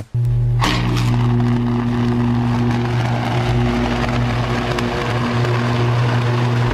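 A steady engine hum with a constant low pitch, joined about half a second in by a loud rushing noise that carries on throughout.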